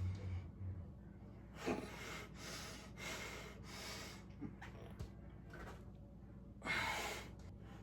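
A person breathing hard, a run of forceful breaths in and out with the loudest near the end, the heavy breathing of exertion during pistol squats. A few faint knocks come in the middle.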